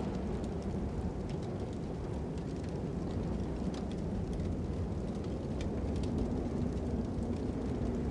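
Steady low rush of wind with scattered small crackles and pops from a burning fire.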